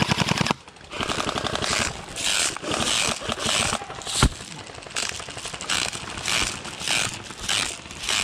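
An airsoft gun firing on full-auto in a rapid stream that cuts off about half a second in, followed by rhythmic rustling about twice a second and a single sharp knock around four seconds in.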